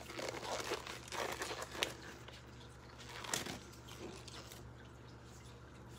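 Gloves being pulled on over the hands: irregular crinkling and rustling, busiest in the first two seconds with a sharp snap near the two-second mark and another burst a little after three seconds, then dying away.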